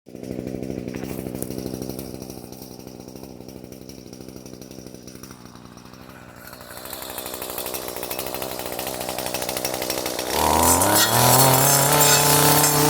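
A motor running with a steady hum, then speeding up and getting much louder about ten seconds in, its pitch climbing and then holding.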